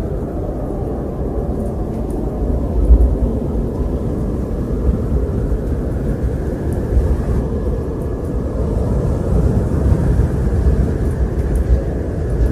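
Wind blowing in a deep, steady rush that swells and eases, with a faint whistling that rises and falls above it.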